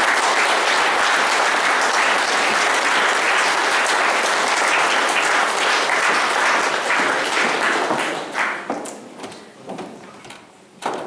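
Audience applauding steadily, then dying away into a few scattered claps about eight seconds in.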